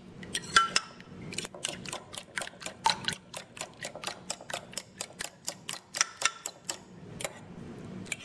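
Metal fork beating eggs in a ceramic bowl, its tines clicking against the bowl in a steady rhythm of about four or five clicks a second, with a short pause near the end.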